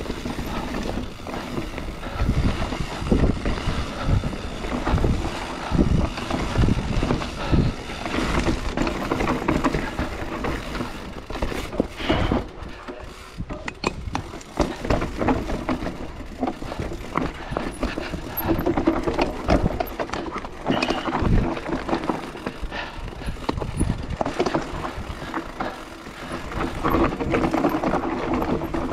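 Mountain bike riding down a bike-park trail: tyres on dirt and the bike rattling and knocking over bumps, over a continuous low rumble, swelling and easing in loudness.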